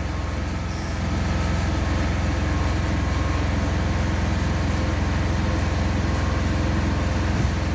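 Spartus MIG 210S MIG welder laying a weld: a steady buzzing arc over a constant low hum, growing louder about a second in and then holding steady.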